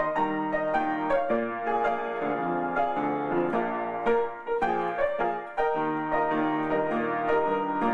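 Knabe baby grand piano played solo: a slow instrumental ballad of chords and melody, notes struck one after another and left to ring.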